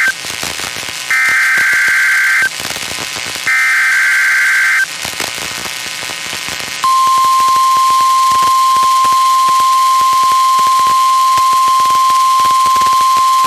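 NOAA Weather Radio Required Weekly Test signals received over the air. The tail of one SAME digital header burst is followed by two more bursts, each a rapid buzzing warble about a second and a half long, with radio static between them. About seven seconds in, the steady 1050 Hz warning alarm tone begins and holds.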